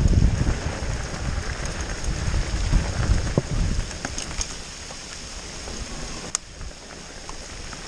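Steady rain hiss during a mountain-bike ride on wet singletrack, over a low rumble from the bike rolling that eases about halfway through. Scattered sharp ticks sound through it, one louder near the end.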